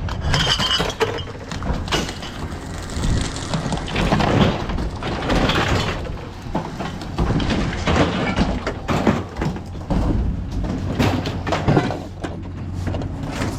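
Irregular knocks and clatter of objects being handled, over a steady low hum.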